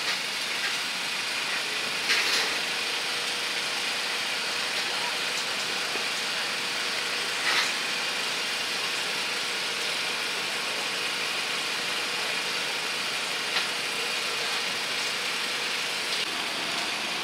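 Steady outdoor market background of a running engine-like drone and hiss, with faint voices, and a few brief sharp sounds about two seconds in and near the middle.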